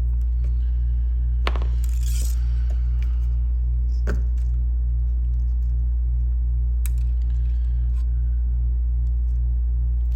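Steady low electrical hum with a faint regular throb, and a few light clicks and clinks from a circuit board and small tools being handled, about one and a half, two, four and seven seconds in.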